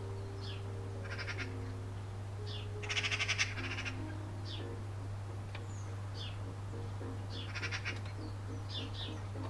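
Small birds chirping, with short falling high calls and two louder rapid trills, about three seconds in and near the end. Beneath them run a steady low hum and held low notes that change pitch.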